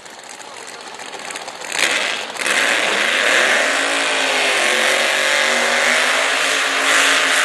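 Pro Mod drag car doing a burnout: after a short blip about two seconds in, the engine is held at high revs with the rear tyres spinning, its pitch swaying up and down.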